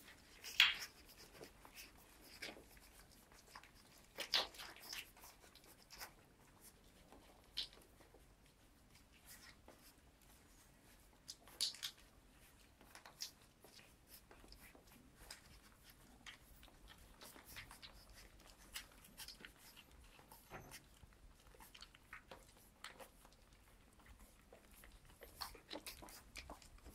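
Two-to-three-week-old Cirneco dell'Etna puppies making faint, scattered short squeaks and rustles as they move about. The loudest come about half a second in and again around 4 and 12 seconds.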